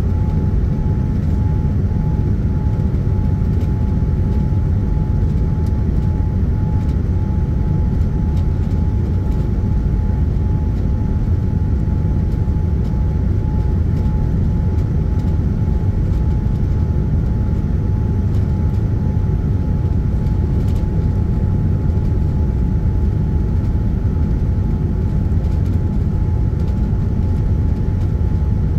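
Cabin noise inside a Boeing 787-10 on approach with flaps extended: a loud, steady low rumble of airflow and engines, with a thin steady tone over it.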